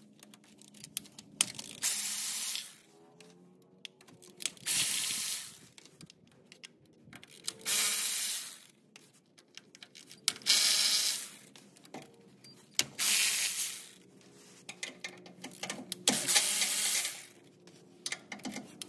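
Hand ratchet with a 10 mm socket backing out transmission pan bolts: about six bursts of rapid clicking, each roughly a second long, a few seconds apart.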